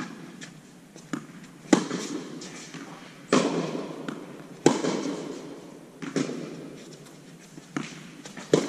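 Tennis ball struck back and forth in a rally, the racquet strings, a Signum Pro Firestorm string bed, popping on the ball, with bounces on the hard court between hits. There are about eight sharp knocks, one every second or so, each ringing on in the big indoor hall.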